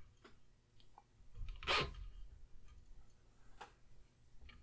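Faint handling sounds of a wire being hooked into a small DC motor's terminal: a few light clicks and one brief scuff about two seconds in.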